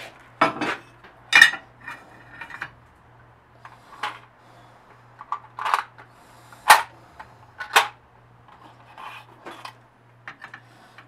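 Rusty steel boat-winch parts clanking and clinking as they are handled and set down on a cast-iron drill press table: a dozen or so separate metal knocks, the sharpest about a second and a half in and near the middle.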